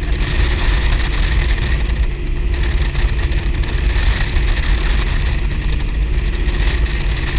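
Powerboat engines running steadily at speed, a deep low drone with a steady rushing noise over it.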